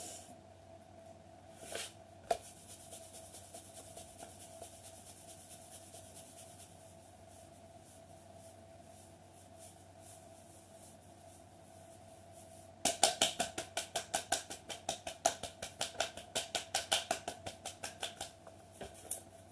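Hands rubbing briskly up and down the calves, then, about two-thirds of the way through, a quick run of hand slaps tapping the calves, about five a second and the loudest part. A faint steady hum runs underneath.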